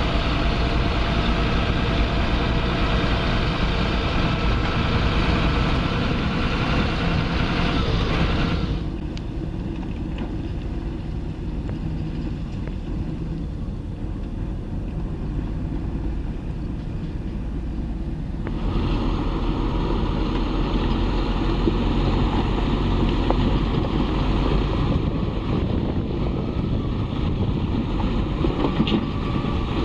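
Heavy construction machinery engines running steadily. The sound changes abruptly about 9 seconds in, growing quieter, and again about 18 seconds in, when it grows louder.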